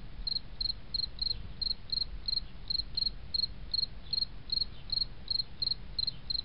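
Insect chirping, high and even, about three chirps a second over a low hum; it stops abruptly near the end.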